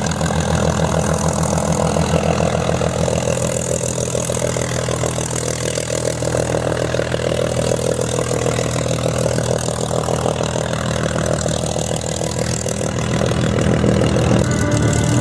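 Piston aircraft engine idling steadily, its firing pulses coming fast and even, a little louder near the end.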